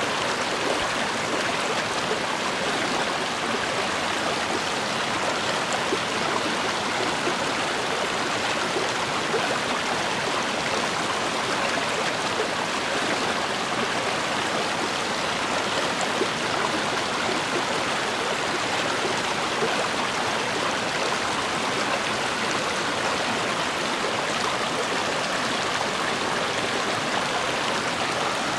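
A river or stream flowing: steady rushing and babbling water.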